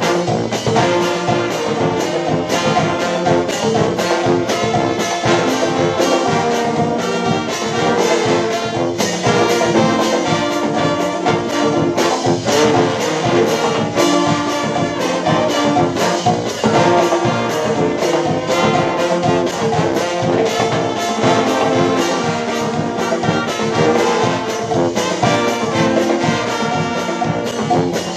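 Dweilorkest (Dutch brass party band) playing live: trumpets, trombones and saxophones over a steady drumbeat of snare drums and bass drum, with a sousaphone in the bass.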